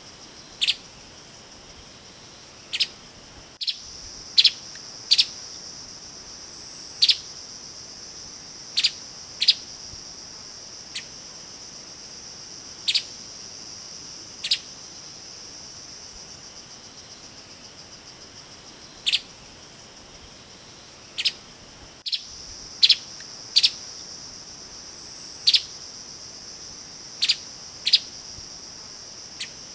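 Streaked spiderhunter giving short, sharp single calls at irregular intervals, sometimes two in quick succession, about twenty in all. A steady high-pitched insect drone runs underneath.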